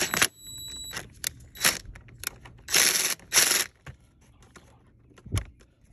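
Cordless drill spinning a socket on a car battery's terminal clamp bolt in several short bursts, tightening the clamp. The two loudest bursts come about three seconds in, and there is a single click near the end.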